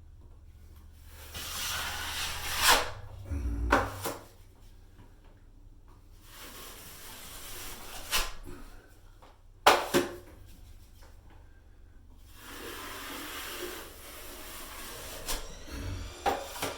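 Drywall knife scraping joint compound across a wall repair in several long strokes, with sharp clacks and knocks of the tools in between.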